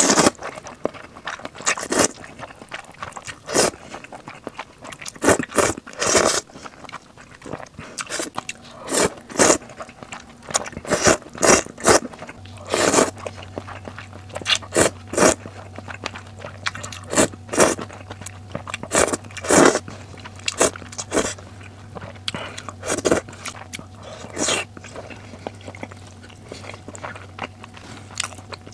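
Close-miked slurping and chewing of glass noodles in hot and sour soup: short wet slurps as strands are sucked in and chewing bites at irregular intervals.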